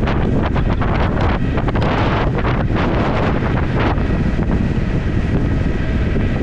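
Heavy wind noise on a helmet- or body-mounted GoPro microphone from riding an electric scooter at around 37 mph, a steady rush broken by constant gusty buffeting.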